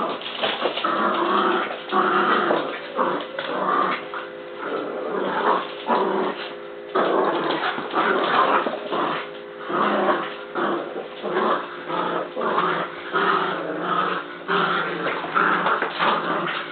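Two puppies, a Min Pin mix and an American Bulldog puppy, play-growling in irregular stretches with short breaks during a game of tug-of-war.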